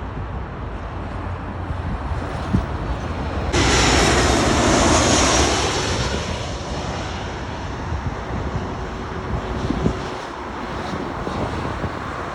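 Jet airliner passing close overhead on landing approach: its engine roar comes in suddenly a few seconds in, is loudest for about two seconds, then fades with a falling pitch. Low wind rumble on the microphone throughout.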